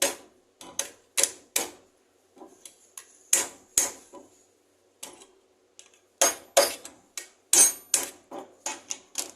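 Sharp, irregular metal clicks and clinks as hand tools work a bearing puller's screw to draw the pulley off a washing-machine motor shaft. The clicks come thicker and louder in the second half.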